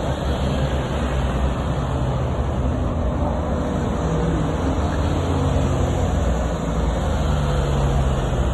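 Road vehicle noise: engines running and tyres on the road, a steady low hum over a broad rush.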